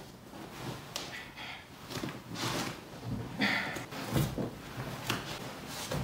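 Irregular rustling, shuffling and soft bumps of a paraplegic person hauling herself by her arms from the floor up onto a sofa, body and clothes shifting against the cushions.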